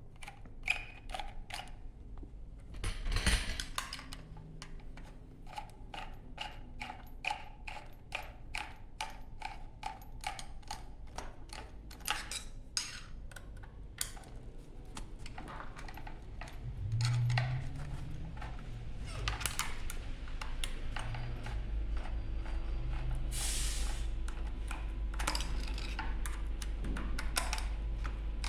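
Hand tools on metal: a long hex wrench working the wheel's motor nut, with many small irregular metallic clicks and knocks. A low steady rumble comes in during the second half.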